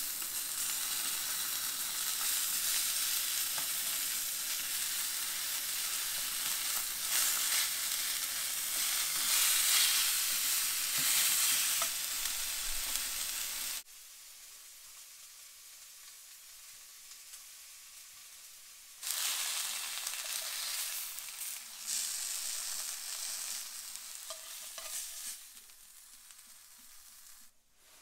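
Trout frying in butter in a pan, sizzling steadily. It cuts off abruptly about halfway through, and after a quieter stretch a second spell of similar sizzle comes and fades away.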